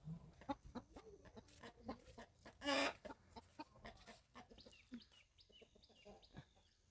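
Chickens clucking, with one loud cluck about three seconds in, over the scuffing of footsteps on a path. Short, high, falling chirps come in during the second half.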